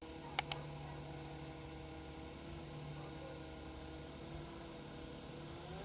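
Steady low room hum with two quick clicks about half a second in.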